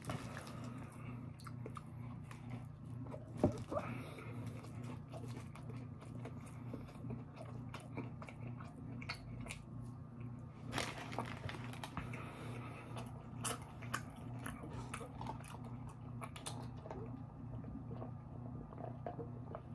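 Close-up chewing and biting of curly fries and a chicken tender sandwich, with wet mouth clicks and scattered crunches, one sharper crunch about three and a half seconds in. A steady low hum runs underneath.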